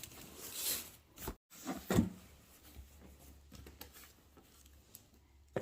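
Faint handling noises: a couple of soft knocks about a second and two seconds in, then low room tone with scattered small clicks and a sharper click near the end. A brief stretch of dead silence about a second and a half in.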